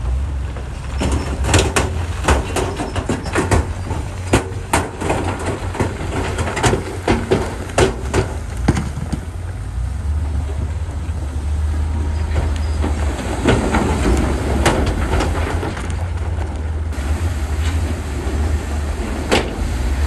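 Heavy diesel earthmoving machinery running with a steady low rumble. Many sharp clanks and knocks come over roughly the first nine seconds, then only a few.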